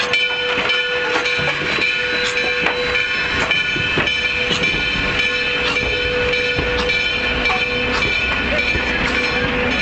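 Ohio Central 1293, a 4-6-2 steam locomotive, and its train rolling slowly past at close range, with a steady high-pitched squeal and a metallic clank about every half second.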